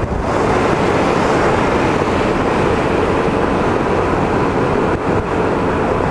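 Steady rush of wind and road noise from a Yamaha X-City 250 scooter riding at speed through rain, its tyres running on wet tarmac.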